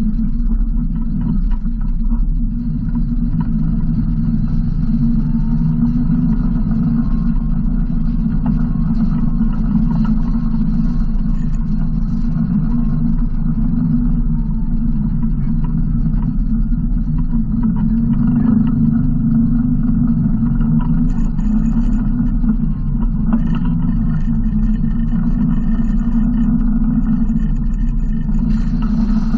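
Yamaha Wolverine RMAX 1000 side-by-side's parallel-twin engine running under way at a steady low drone.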